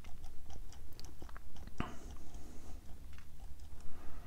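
Small screwdriver tightening a screw into the plastic front-fork parts of a 1:6 scale model kit: faint scattered clicks and creaks, with one sharper click about two seconds in.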